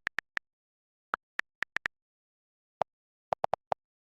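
Scattered short clicks, about fourteen, in small clusters separated by dead digital silence. The later ones, around three seconds in, are lower in pitch.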